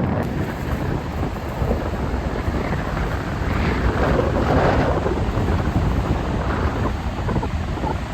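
Storm surf: waves breaking and surging in a continuous loud rush with a deep low rumble, swelling about halfway through.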